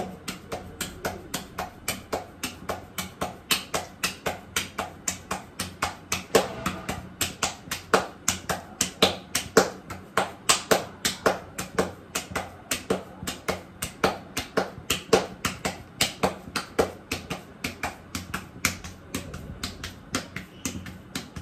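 Rotla (thick Gujarati flatbread) dough being patted flat by hand, slapped between wet palms in a steady run of sharp slaps about three a second.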